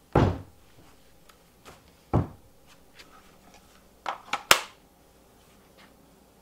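Handling noise of a cordless power tool set down and moved about on a workbench: a heavy thump just after the start, another about two seconds in, then a quick run of clicks ending in a sharp knock about four and a half seconds in.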